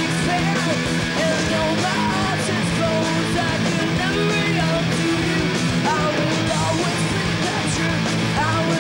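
Punk rock band playing live: distorted electric guitars, bass and drums.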